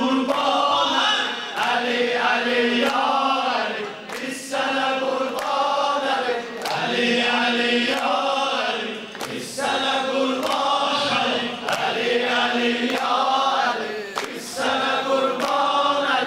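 Men singing a devotional chant into microphones, a lead voice with a group of male voices singing along, over slow, steady hand claps.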